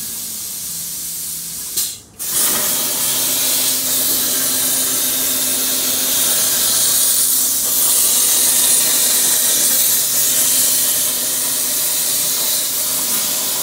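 CNC air-plasma torch hissing, then cutting off abruptly about two seconds in and re-firing into a louder, steady cutting hiss with a faint hum as it pierces and cuts 3/16 steel plate.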